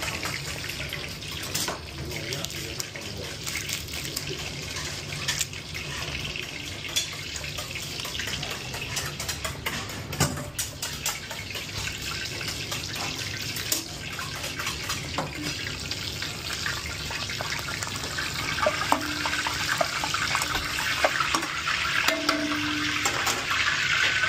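Hot oil sizzling in a frying pan as food fries: a steady hiss with scattered crackles, getting brighter near the end, and a couple of short metallic clinks near the end.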